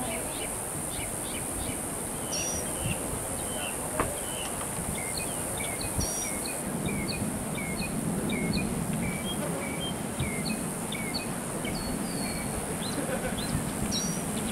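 Many small birds chirping in short, repeated high notes over a steady hiss, with a couple of sharp knocks about four and six seconds in.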